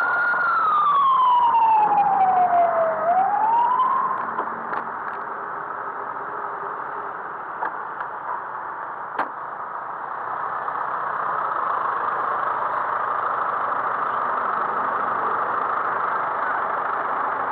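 An emergency vehicle's siren wailing: its pitch sweeps down and back up once, then it stops about four seconds in. After that, a steady rush of street traffic with a few sharp clicks, louder from about ten seconds in.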